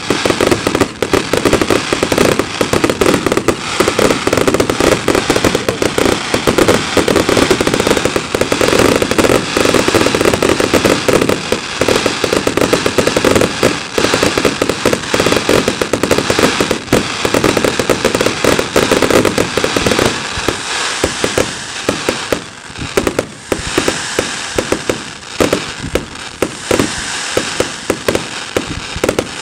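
Fireworks display: a dense, rapid barrage of bangs and crackles from shells bursting overhead. About two-thirds of the way through it thins to fewer, more spaced-out bangs.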